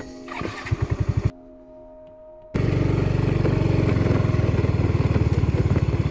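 A small engine running with a fast, even pulse. It is heard briefly near the start, drops out, then comes back abruptly about two and a half seconds in and runs steadily.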